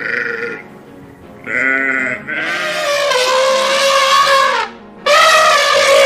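Young goat bleating four times: a short call, then longer, loud drawn-out bleats, the longest lasting over two seconds.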